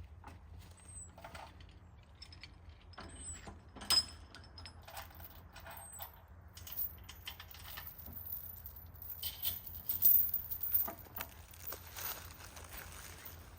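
Light metallic jingling and clinking from a mule team's harness and chains as they move, with a sharp clink about four seconds in and a busier rattle around ten seconds.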